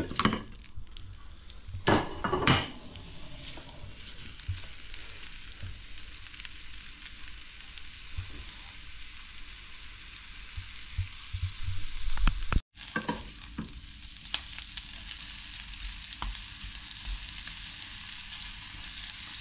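Frozen sliced doner kebab meat sizzling steadily in a hot non-stick frying pan, with a few loud knocks in the first couple of seconds as the slices are tipped in from a plate.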